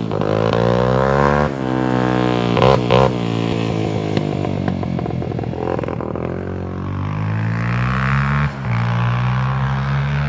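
Freshly rebuilt Honda 300EX ATV's single-cylinder four-stroke engine under way, its pitch climbing and dropping several times as it is throttled up and backed off, then running steadier with one more climb near the end.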